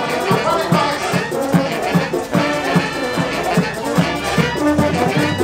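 Latin band music with brass horns over a quick, steady beat.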